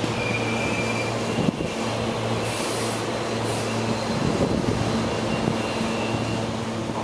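SEPTA electric regional rail train running along the track through the station, a steady rumble with a constant low electrical hum and faint high whine, and a single click about one and a half seconds in.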